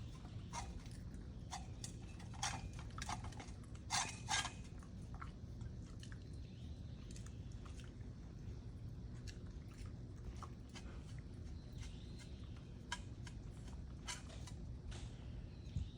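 A dog eating seaweed porridge from a bowl: irregular wet chewing and licking clicks, busiest a few seconds in and again near the end.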